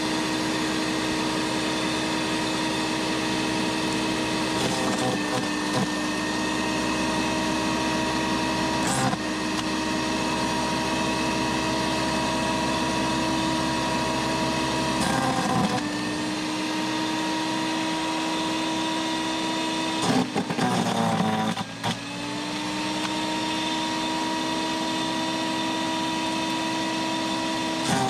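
Sun Joe CJ602E 15-amp electric wood chipper running with a loud, steady motor whine. Several times, as twigs and branches are fed in and chipped, its pitch sags with a short rattle, most deeply for about two seconds some twenty seconds in, and then the motor comes back up to speed.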